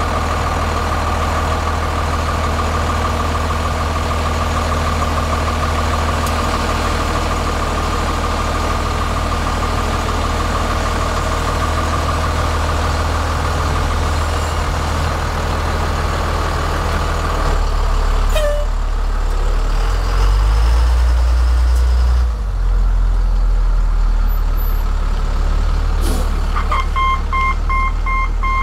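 A 1996 Ford F-800's 5.9-litre inline-six Cummins diesel running steadily. About 18 s in the engine note deepens and grows louder, and near the end the truck's backup alarm starts beeping in rapid, even beeps.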